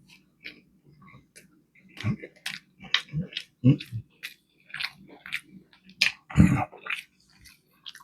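Close-up wet chewing and biting into a barbecue fish fillet sandwich, with irregular smacking and squishing sounds and a louder bite about six seconds in.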